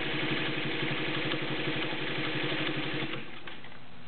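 Singer 301 direct-drive sewing machine stitching through fabric at speed, a steady running hum with a fast, even needle rhythm, running smoothly. It stops about three seconds in.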